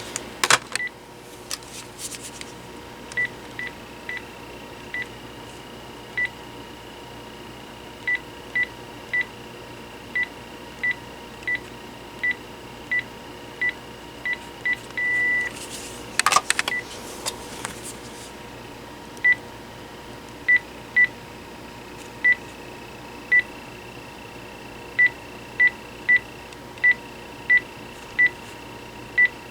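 Panasonic KX-TG6841 cordless handset key beeps: short single-pitch tones at irregular intervals as buttons are pressed through its menus, with one longer beep about halfway through. A brief clatter of handling about 16 seconds in.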